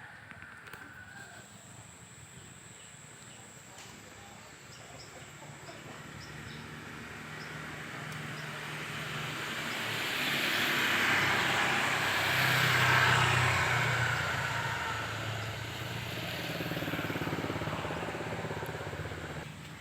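A motor vehicle passing by: engine hum and road noise swell slowly to a peak a little past the middle, then fade away near the end.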